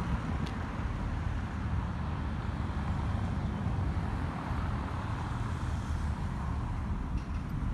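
Steady low rumble of outdoor background noise, with no single event standing out.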